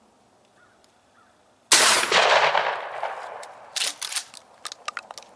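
A single shotgun shot about two seconds in: a loud, sharp report with a tail that rolls away over more than a second. The shot misses high, going right over the deer's back. A quick series of sharp clicks and knocks follows near the end.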